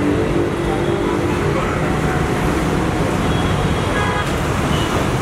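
Steady street background noise: traffic rumble with faint voices mixed in.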